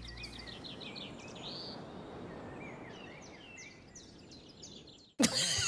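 Countryside ambience: small birds chirping in short repeated calls over a soft steady hiss. It cuts off abruptly about five seconds in, giving way to louder sound.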